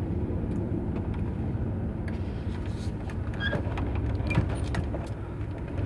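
Truck driving, heard from inside the cab: a steady low rumble of engine and road noise, with a few light clicks and rattles partway through.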